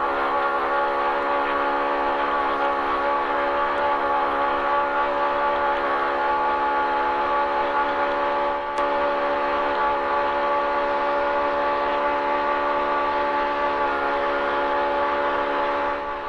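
Polaris RZR Pro R's 2.0-litre four-cylinder engine running at steady high revs, holding one unchanging droning pitch, heard from inside the vehicle; it eases off slightly right at the end.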